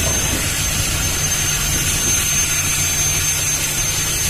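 A heavy engine running steadily: a low drone under a hiss, with a constant high whine.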